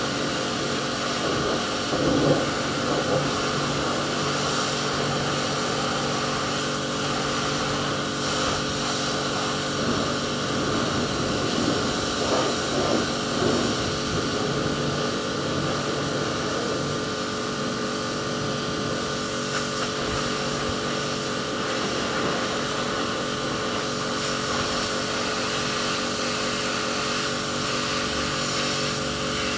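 Electric pressure washer running steadily: the pump motor's constant hum with the hiss of the water jet. The sound gets briefly louder and rougher about two seconds in and again between about ten and fourteen seconds.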